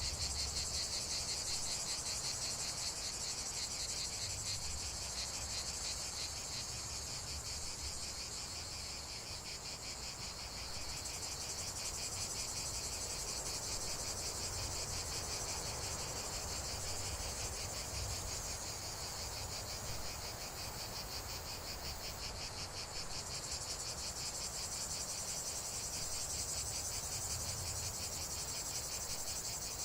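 Insects chirring in a steady chorus of rapid, high-pitched pulses, with a faint low rumble beneath.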